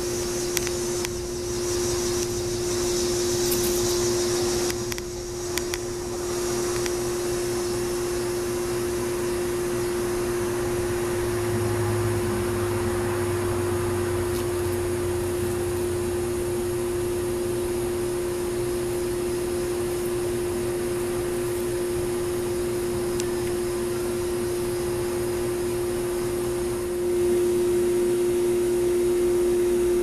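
Steady machine hum with one constant droning tone, over an even background noise. In the first few seconds a brief high hissing buzz and a few sharp clicks sound over it, and the hum grows a little louder near the end.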